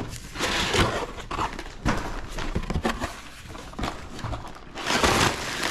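Cardboard box and plastic bags of Lego pieces being handled while the kit is unboxed: rustling and crinkling with knocks, in several bursts, the loudest near the end.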